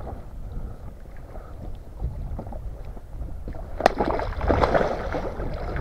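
A single sharp smack about four seconds in, a wooden baton striking a large catfish at the water's surface, followed by splashing as the fish thrashes beside the boat. Low wind rumble on the microphone underneath.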